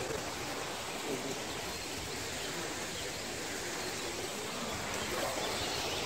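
Steady rushing of a small waterfall pouring into a forest pool.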